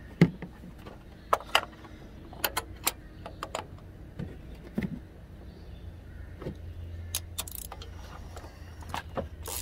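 Scattered metallic clicks and clinks of hand tools: a spark plug socket on an extension being set down into the plug well, then a ratchet fitted onto it, with a few sharp clicks near the end.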